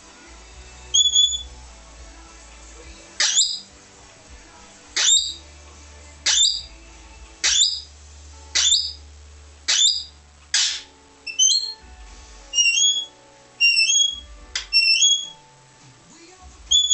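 Australian king parrot calling repeatedly, about one call a second. A short run of sharp shrieks sweeping up in pitch is framed by high two-note whistles that step up in pitch, one near the start and several toward the end.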